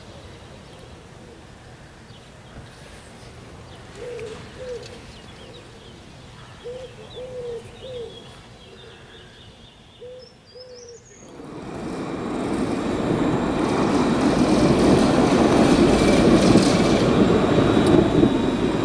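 A tram approaching on its rails: a rumble that starts about eleven seconds in, swells over a few seconds and stays loud. Before it, a bird gives short calls in small groups.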